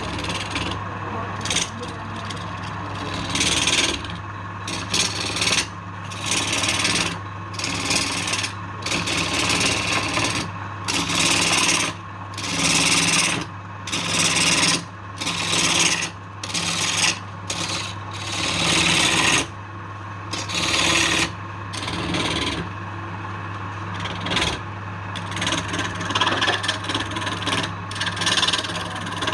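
Wood lathe running with a steady motor hum while a tool is pressed against the spinning wood again and again. The result is a string of rasping, scraping strokes, each lasting about a second, with short pauses between them.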